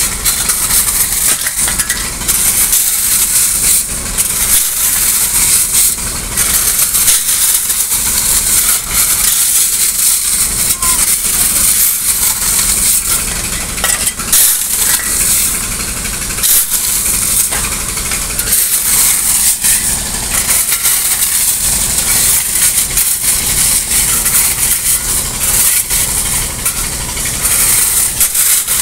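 Steel shovels scraping and digging into loose river pebbles, the gravel rattling and crunching continuously, over the low steady hum of an engine running.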